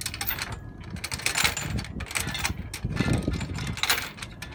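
Anchor chain rattling and clinking in a dense run of metallic clicks as a 35-pound Delta-style anchor shackled to it is lifted and handled.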